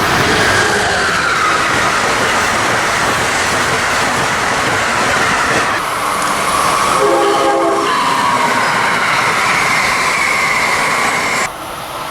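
A train passing close by with loud rushing wheel-and-rail noise and a high whining tone that slowly falls in pitch. About seven seconds in comes a short blast of the locomotive's air horn, and the sound cuts off abruptly near the end.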